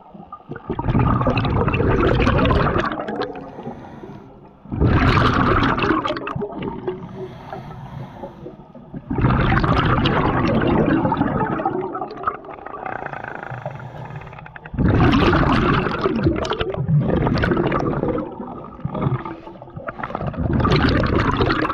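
Scuba diver breathing through a regulator underwater: five loud bubbling exhalations, one about every five seconds, each lasting two to three seconds, with quieter pauses between.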